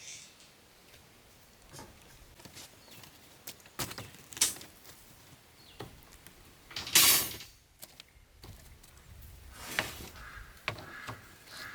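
Irregular knocks, clicks and scrapes of hand construction work, with one loud scraping rush about seven seconds in.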